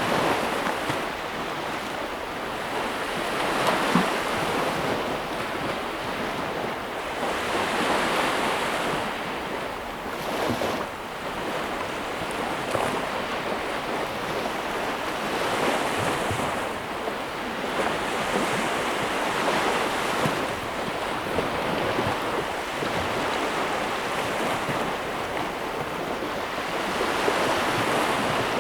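Ocean waves breaking and washing in, a steady rushing surf that swells and eases about every four seconds.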